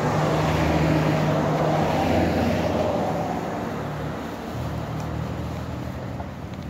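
Road traffic passing close by: a minivan and a small truck go past with engine hum and tyre noise, loudest in the first two seconds and fading away after about four seconds.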